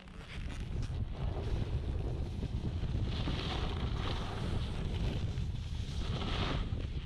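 Wind buffeting a GoPro's microphone during a snowboard run, with the hiss of the board sliding over snow swelling twice, about three and about six seconds in.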